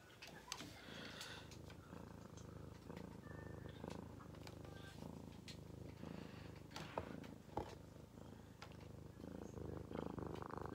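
Domestic cat purring steadily, close to the microphone, with a few short clicks partway through.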